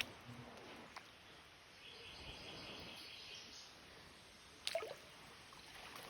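Faint trickle of shallow creek water, with a few quiet knocks and splashes of boots stepping through it. A louder splash comes about three-quarters of the way through, as water gets into the boots.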